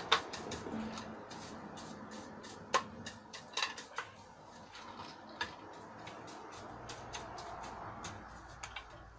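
A small hand brush sweeping dust off the base of a floor lamp: scratchy brushing with irregular sharp clicks and light knocks as the brush strikes the base.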